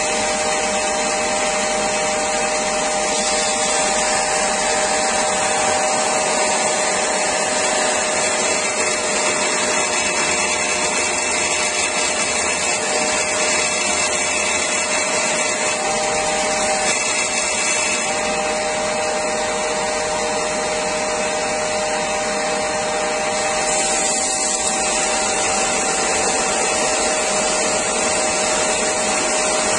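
Parkside PBTS 370 B2 belt and disc sander running steadily on its 370 W induction motor while a strip of wood is held against the moving sanding belt.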